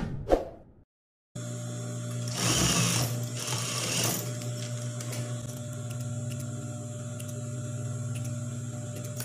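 Industrial single-needle sewing machine running steadily and stitching, with a steady low hum. A brief thump comes just before it starts, and the stitching sounds brighter for a couple of seconds soon after it starts.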